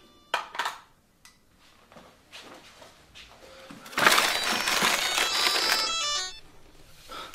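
Film score sound design: a sharp hit soon after the start, then from about four seconds in roughly two seconds of loud harsh noise laced with high ringing tones, which cuts off abruptly.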